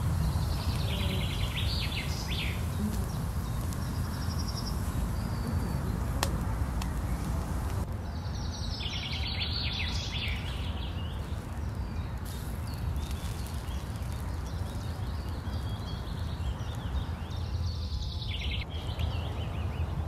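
A songbird sings three short trilled phrases, about a second in, around nine seconds in and near the end, over a steady low rumble and hiss.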